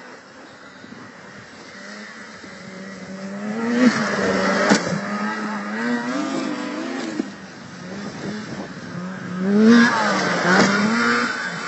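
Racing snowmobile engines revving hard as sleds go past on the course. The loudest passes come about four seconds in and again near ten seconds, the pitch climbing as each sled nears and dropping as it goes by.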